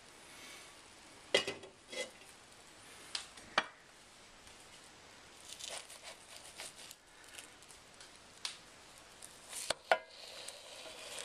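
A spatula clicking and scraping against a Copper Chef nonstick square pan while French toast is turned, over a faint frying sizzle. The sharp knocks come one at a time and several seconds apart. The sizzle grows louder over the last second as a slice goes back down on the hot pan.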